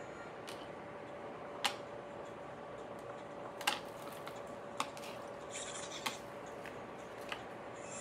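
Light scattered clicks and a brief rustle as deco mesh and plastic clips are handled on a cutting mat, over a faint steady hum.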